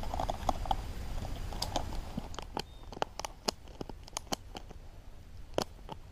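Snowshoe bindings being strapped onto boots: a run of sharp, irregular clicks and ticks from the straps and buckles, the loudest about five and a half seconds in.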